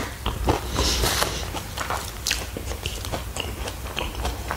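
Close-miked chewing of a Black Forest pie with the mouth closed: small wet clicks and smacks of the mouth. There is a brief swish about a second in.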